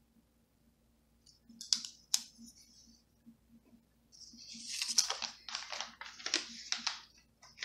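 Paper sticker sheet handled and worked at: two sharp clicks about two seconds in, then a run of crackly paper rustling from about four seconds in.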